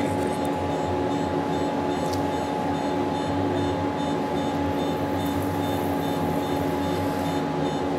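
Steady machine hum with a few held tones, unchanging throughout.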